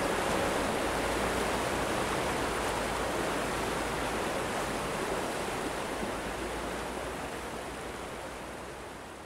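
Steady rush of flowing water, slowly fading out.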